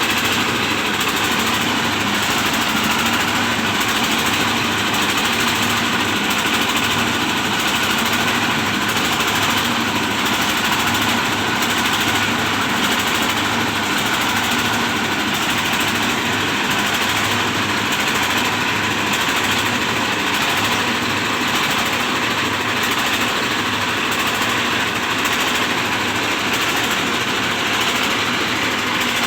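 Rice milling machine driven by a decades-old Dongfeng 24 hp single-cylinder diesel engine, running loud and steady under load.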